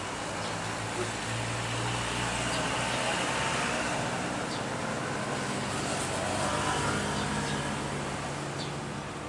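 Jet engines of a landing Airbus A320-family airliner on short final with gear down, a steady broad roar that swells a little in the middle and eases near the end.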